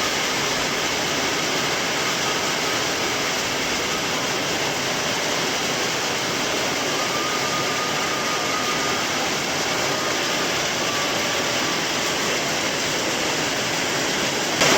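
Heavy rain pouring down in a thunderstorm as a steady, dense rush of noise that jumps louder just before the end.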